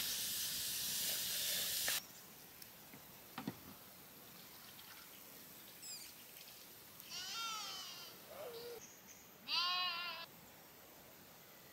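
A sheep bleating twice with a wavering voice, about seven seconds in and again, louder, about nine and a half seconds in. A steady hiss stops abruptly about two seconds in.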